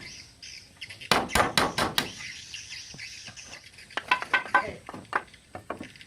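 A quick run of about six hammer blows in under a second, then a few lighter taps with a faint metallic ring.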